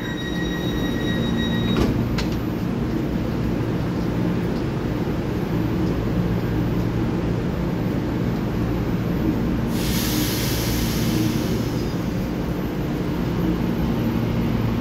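Taiwan Railway EMU3000 electric multiple unit standing at the platform with its doors closed, its onboard equipment humming steadily. There is a click about two seconds in, and a burst of hissing air about ten seconds in that fades over a couple of seconds.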